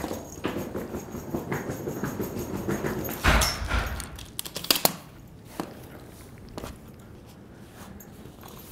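Suitcase wheels rattling and footsteps on a hard floor, then a heavy door thudding shut about three seconds in. After that come a few clicks and quieter handling knocks as bags are set down.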